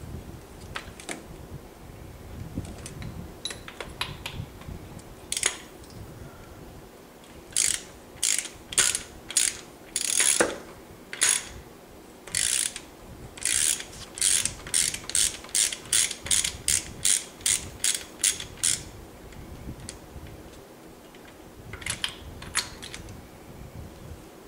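Hand ratchet clicking as its socket spins spark plugs out of the cylinder head, a long run of sharp clicks in the middle that quickens to about three a second. A few scattered clicks come before it and a few more near the end.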